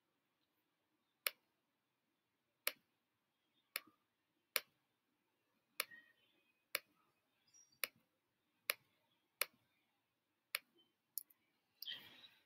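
Faint, sharp single clicks of a computer pointer button, about one a second and a dozen in all, each advancing the slideshow by one slide. A short rustle comes near the end.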